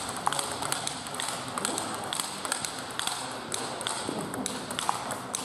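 Table tennis rally: quick, sharp clicks of a celluloid-type table tennis ball striking rackets and the table, coming several times a second, with hits from more than one table overlapping.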